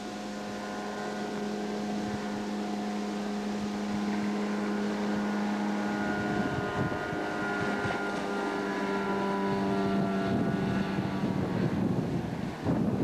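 Jet boat's car engine running, driving a 155 mm waterjet: a steady engine note that grows gradually louder, its pitch shifting slightly about halfway through.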